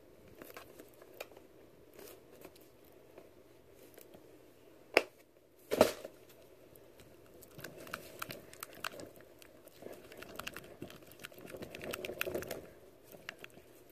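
A silicone spatula stirring a sticky, not yet activated glue, hand soap, baby oil and conditioner mix in a bowl, giving wet clicking and crackling from about halfway through. Before that, two sharp clicks about five and six seconds in.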